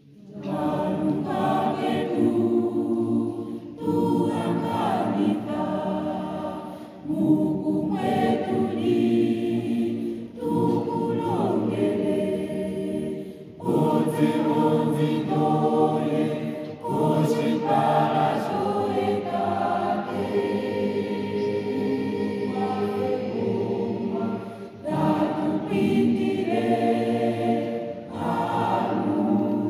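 Mixed-voice choir of men and women singing together in several parts, in phrases broken by short pauses for breath. The singing comes in right at the start.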